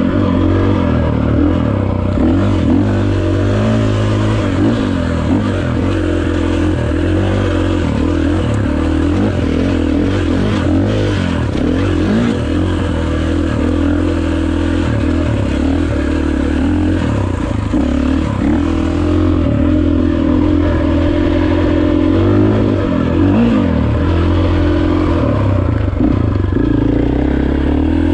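KTM dirt bike engine running under riding load, its pitch rising and falling over and over as the throttle is worked over rough trail.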